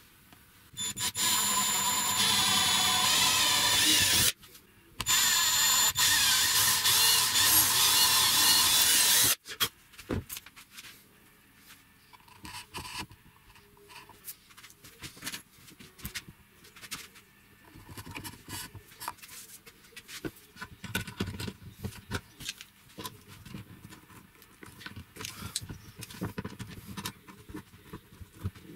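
Electric drill running at full speed with a high whine, in two runs of about three and four seconds. After that come light, scattered clicks and knocks of hand work on the wooden shelf, and near the end pliers work a metal wire hook.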